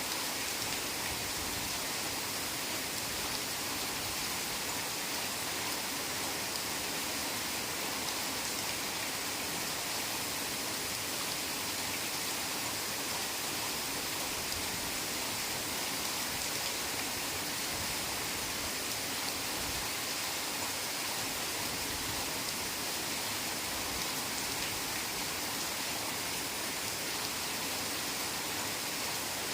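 Steady heavy rain, an even hiss of many drops falling on foliage.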